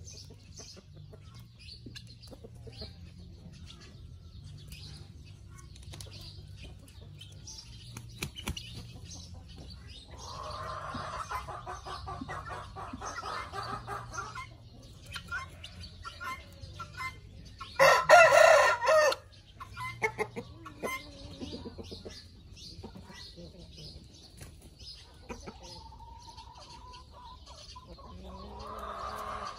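Khmer village chickens clucking around the yard, with a rooster crowing loudly once past the middle.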